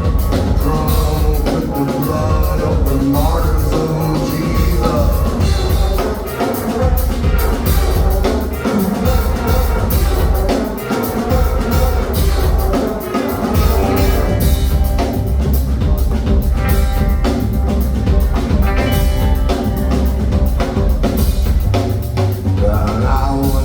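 Live rock band playing mid-song, with a steadily hit drum kit and heavy bass, and sustained pitched instrument lines that stand out more about two-thirds of the way through.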